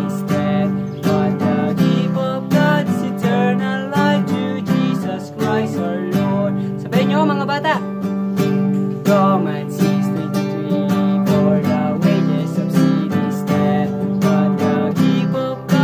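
Acoustic guitar with a capo strummed in a steady rhythm, with a man singing a melody over it.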